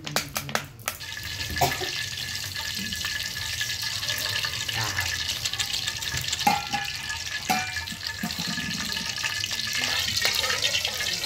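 Cooking oil is poured from a plastic bottle into a hot steel wok, with clicking in the first second. From about a second in, the oil sizzles with a steady hiss, and a metal spatula scrapes and knocks against the wok a few times.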